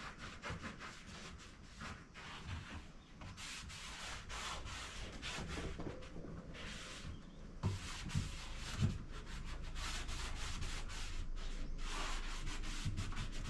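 Repeated back-and-forth rubbing strokes on a wooden furniture piece as it is cleaned, each stroke lasting about a second and growing steadier and a little louder partway through. Three soft knocks come a little past halfway.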